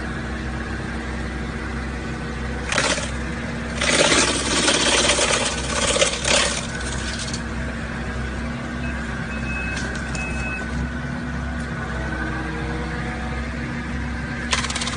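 Excavator engine running steadily while its wood chopper attachment crushes wood. The crushing comes in loud bursts, a short one about three seconds in and a longer one from about four to six and a half seconds. Two short high beeps follow a few seconds later.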